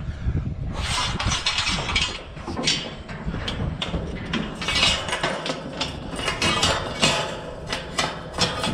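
Galvanized steel livestock panels clanking and rattling as their joints and connecting pins are worked by hand, many sharp metal knocks over a steady low rumble.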